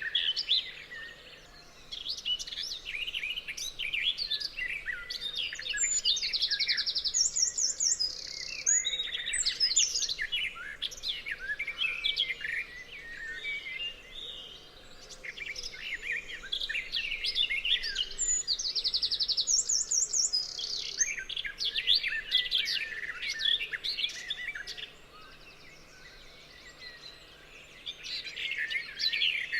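A chorus of several songbirds singing and chirping, a dense stream of short high notes, with a fast high-pitched trill about seven seconds in and again about twelve seconds later.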